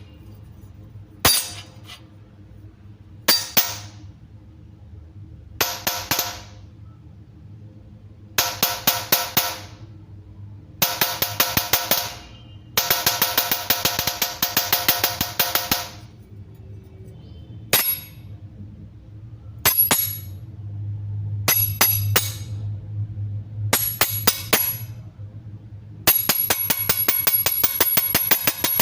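Metal spoon clinking with a ringing tone: three single strikes about two seconds apart, then bursts of rapid clinking from a spoon stirring in a cup, running on steadily near the end.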